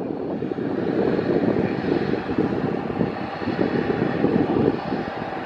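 Rough, fluctuating rumble of a distant jet airliner, mixed with wind buffeting the microphone.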